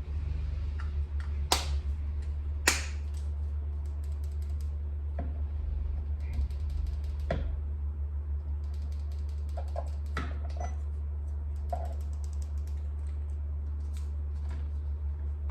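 Scattered sharp clicks, the two loudest in the first few seconds, over a steady low electrical hum: key fob buttons being pressed repeatedly to test a fob that will not transmit.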